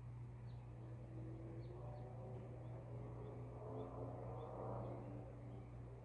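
Quiet backyard ambience: a steady low hum, with faint short high chirps of a distant bird, at first a few, then roughly every half second after about three seconds in. Faint background noise swells and fades around the middle.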